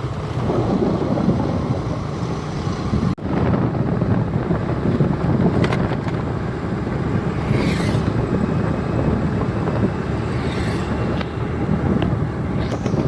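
Road-travel noise of a moving vehicle, with wind rushing over the microphone. The noise is steady and breaks briefly about three seconds in.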